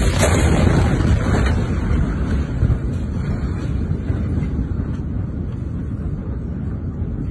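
Deep roaring rumble of a huge explosion just after its blast wave has struck, with heavy buffeting on the phone's microphone; the rumble slowly dies down.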